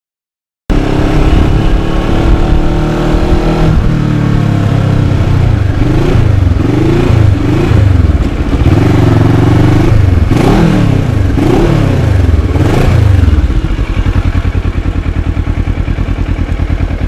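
Kawasaki Ninja 650R's parallel-twin engine running as the bike is ridden slowly, its note rising and falling several times with the throttle, then settling into a steady idle near the end as the bike stops.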